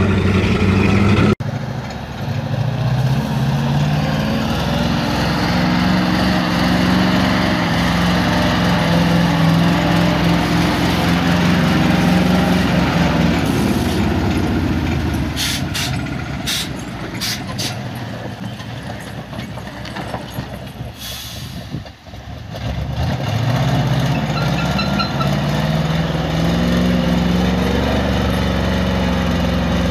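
Heavy off-road truck engine labouring in deep mud, its revs rising and falling in long surges as the driver works the throttle. A few short sharp clicks come about halfway through.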